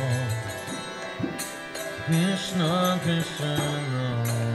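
Devotional kirtan music: a voice chanting a mantra over a held low drone, with a steady beat of short metallic cymbal strikes.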